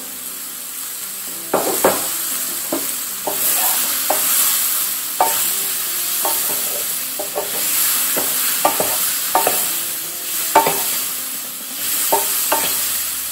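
Sliced mushrooms with garlic and herbs sizzling in butter in a frying pan as they sauté and start to sweat. From about a second and a half in, a wooden spatula scrapes and knocks against the pan at an irregular pace as they are stirred.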